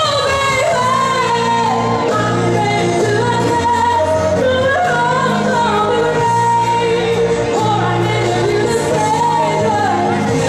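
A woman singing a pop song live into a handheld microphone over amplified accompaniment with a steady bass line, played through PA speakers. Her voice carries a gliding, held melody above the repeating bass notes.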